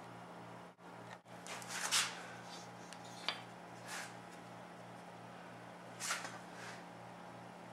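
Handling noise from a wooden picture frame held in wire spring miter clamps, being gripped and lifted off the work surface: a few short scraping rubs and one light click, over a steady low electrical hum.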